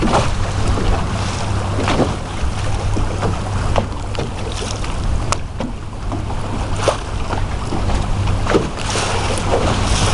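Wind buffeting the microphone over a steady rumble of ocean surf from a typhoon swell, rising and falling in gusts.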